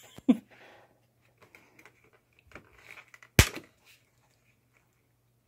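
Scattered light clicks and rustling as a rabbit noses at a plastic clamshell of raspberries, with one sharp knock about three and a half seconds in.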